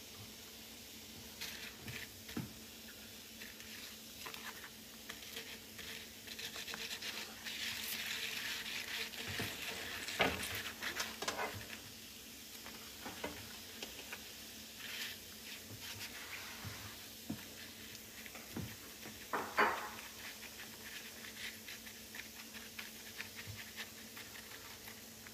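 Liquid sizzling and bubbling in a skillet, with many small crackles and pops, a louder spell of fizzing a little before the middle and two sharper pops, one near the middle and one about three-quarters through. Tongs and a brush scrape and stir in the pan.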